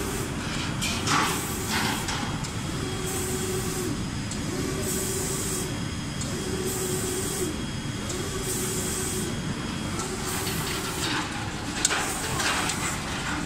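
Automatic spray-painting line for cabinet doors running: the reciprocating spray guns hiss in repeated bursts of a second or two as they sweep across the panels. Under it is a steady machine hum and a motor tone that breaks off briefly between sweeps.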